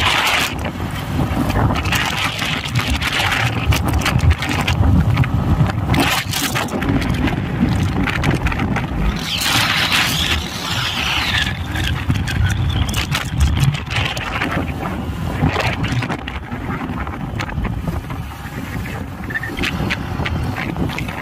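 Road noise from a vehicle under way: a steady low rumble of engine and tyres, with wind buffeting the microphone.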